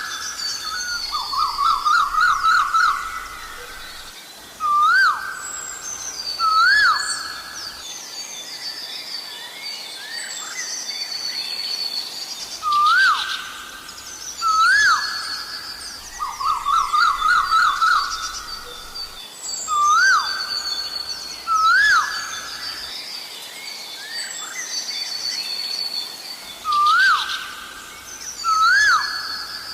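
Asian koel calling over and over: single rising whistled notes alternating with quick runs of rising notes, while other birds chirp and twitter at a higher pitch.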